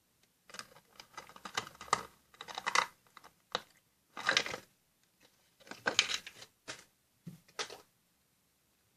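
A thin plastic sour-cream tub being worked by hand, clicking and crackling in a series of short bursts, as it is cut and fitted into a container.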